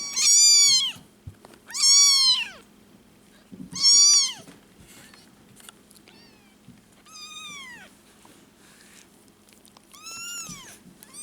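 Two-week-old kittens meowing: five high, thin cries, each rising then falling in pitch, the last two fainter, over a faint steady hum.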